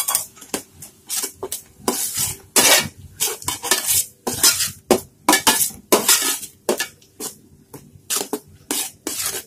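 A steel spoon scraping and clinking against a stainless steel pan as a thick ground coconut-mustard paste is stirred into the curry, in quick, irregular strokes of two or three a second.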